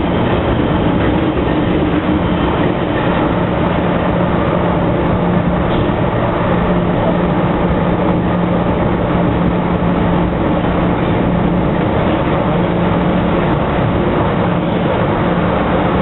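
Inside a moving MTR M-Train car (C456) running at a steady speed: a steady motor hum holding one pitch over the continuous rumble of wheels on track.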